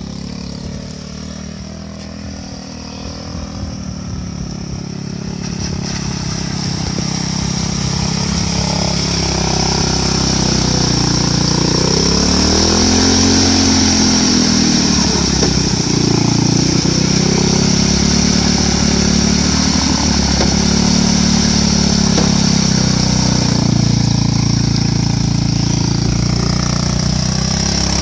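Two-wheel-drive fat-tyre motorcycle's engine running, growing louder over the first ten seconds as it comes closer, then revving up and down under load as the bike ploughs through water and mud.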